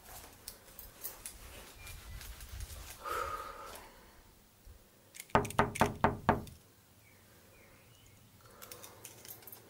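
Knocking on a door: about six quick raps in a little over a second, about halfway through.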